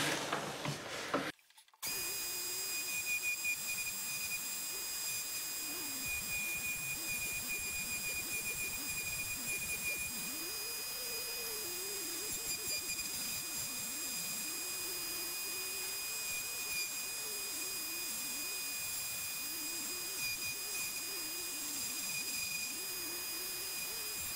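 Dremel rotary tool on a flex shaft spinning a tiny 1/8-inch diamond flame burr against wood, carving fine detail. It starts about two seconds in with a steady high whine, and a lower tone rises and dips as the burr is pressed into and eased off the wood.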